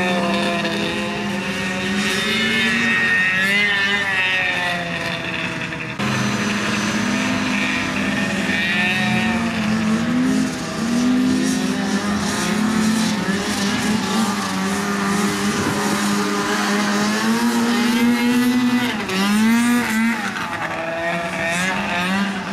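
Engines of several small open-cage dirt-track racers running at once, their pitch rising and falling as they rev up and back off through the corners. The sound changes abruptly about six seconds in.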